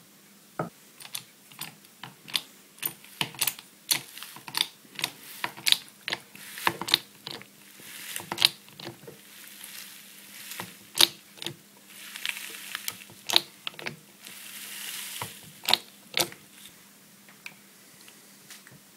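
A homebuilt juicer and apple grinder being worked: irregular sharp mechanical clicks and knocks, roughly one or two a second, with a few short stretches of hiss and a faint steady hum underneath.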